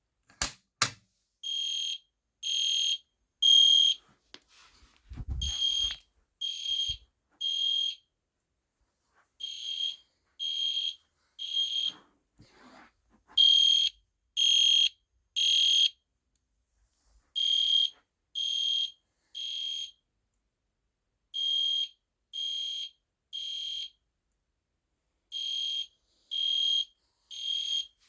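Edwards (EST) Genesis G1-HDVM horn strobe sounding the temporal-three evacuation pattern after the pull station has been pulled. It gives three high-pitched horn blasts about a second apart, then a pause, repeating steadily seven times. The blasts are preceded by a couple of sharp clicks right at the start, as the pull station is pulled.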